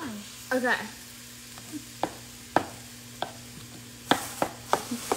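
A utensil clicking and scraping against a wooden bowl as guacamole is stirred, sharp irregular knocks about every half second, coming faster near the end, over a faint steady hum.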